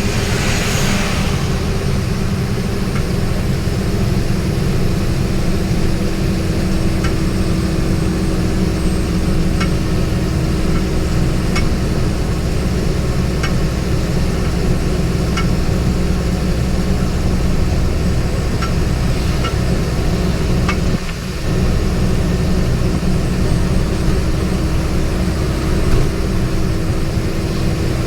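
A road vehicle driving steadily on a highway: constant engine and road rumble with a steady low hum, and faint light ticks about every two seconds.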